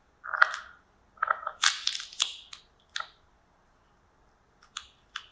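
Pomegranate being torn and crushed by hand: a series of short crunching, crackling bursts. There is one burst early, a dense cluster between about one and two and a half seconds in, another at about three seconds, and a few sharp clicks near the end.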